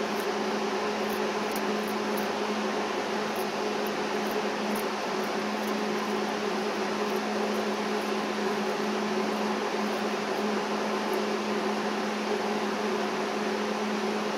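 Steady mechanical hum of a running fan or air unit, with a constant low drone and even hiss, and faint scattered ticks on top.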